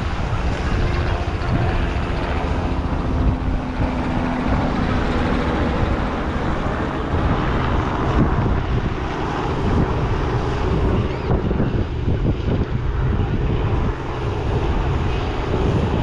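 Wind buffeting the microphone in a continuous low rumble, over the steady wash of surf.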